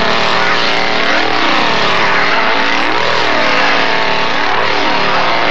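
Two-stroke chainsaw engine running loud at high revs, its pitch swelling up and falling back about three times.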